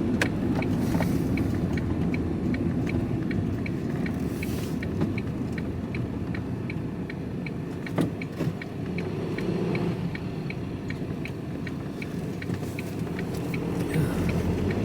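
Van's turn-signal indicator ticking at an even pace inside the cab, over the steady rumble of the engine and road. There is a sharper click about eight seconds in.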